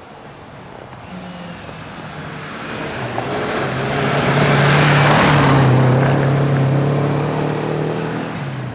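Renault 5 GT Turbo rally car's turbocharged four-cylinder engine running hard as the car approaches and passes close by, sliding on the snowy road with a rush of tyre noise. It is loudest about five seconds in, then fades as the car drives away.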